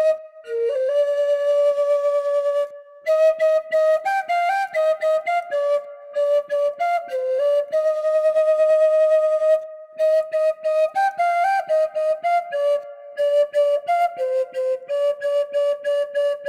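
Atenteben, a Ghanaian end-blown bamboo flute, playing an Ashanti funeral dirge melody solo. Long held notes alternate with runs of short, separately tongued notes. The player breaks off briefly for breath about three seconds in and again near the ten-second mark.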